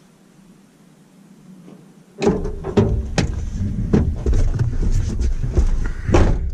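Faint hiss, then about two seconds in a sudden loud low rumble with a run of knocks and clicks, typical of a car door, seat and microphone being handled as someone settles into a car.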